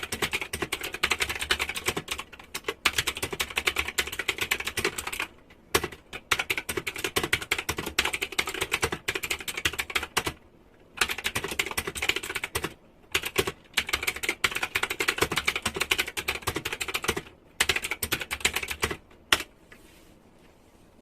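Rapid typing on a typewriter-style mechanical keyboard with round plastic keycaps: a fast, dense stream of key clicks broken by a few brief pauses, stopping shortly before the end.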